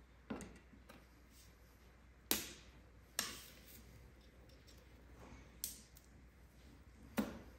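A handful of sharp knocks and clicks at irregular intervals, about five in all: household objects being handled and set down.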